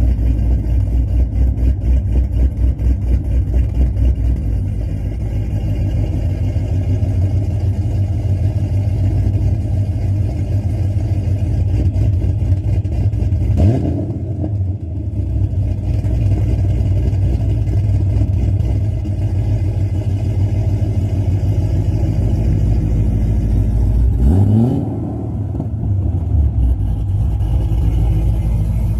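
Supercharged C6 Corvette V8 with a Corsa exhaust, running with a deep, pulsing exhaust note. It is revved twice, the pitch climbing each time, once about halfway through and again near the end.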